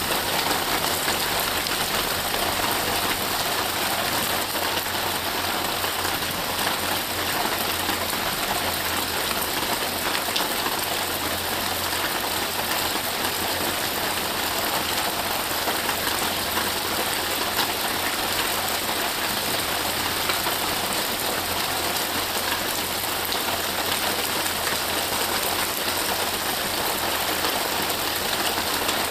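Rain falling steadily: an even hiss with faint ticks of individual drops.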